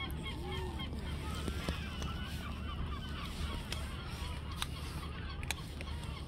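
Many birds calling, a busy chatter of short rising and falling chirps over a steady low rumble, with a few sharp clicks from cats crunching dry kibble.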